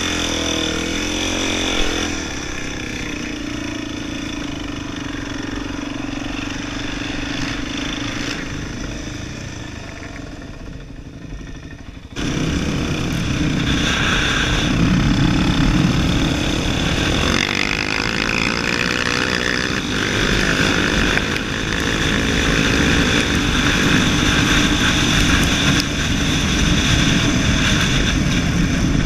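Quad bike engine running as it is ridden over rough ground, its pitch shifting with the throttle. The sound jumps abruptly louder about twelve seconds in.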